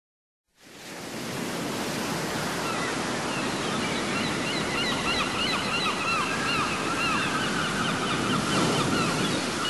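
Ocean surf washing steadily, coming in about half a second in. From about three seconds in, birds call over it in quick, repeated chirps.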